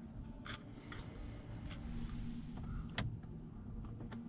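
A few soft clicks of the Porsche Cayenne S's cabin switches being pressed and handled, the sharpest about three seconds in, over a faint low steady hum in the quiet cabin.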